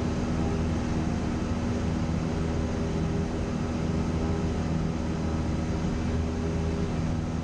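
Cessna 172's piston engine and propeller droning steadily in flight, an even hum that holds the same pitch throughout.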